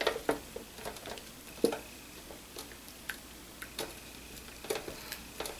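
Scattered wet squishes and light taps as raw marinated chicken legs are handled and laid on a perforated enamel broiler pan.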